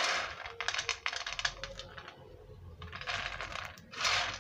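Dry-roasted soybeans rattling and clicking as a hand rakes through a heap of them: a quick run of clicks in the first couple of seconds, then a softer rustling shuffle.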